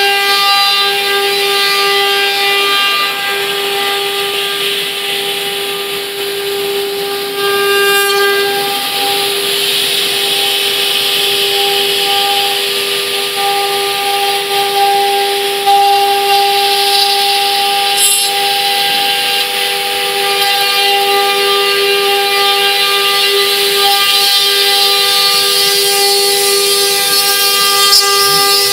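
4-axis CNC router's spindle whining at a steady pitch while its bit carves a wooden log, with a hiss of cutting wood that rises and falls as the tool moves.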